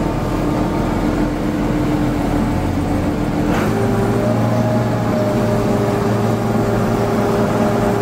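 Oxbo sweet corn picker running with a steady machine hum. About three and a half seconds in, the hum shifts to a different set of pitches.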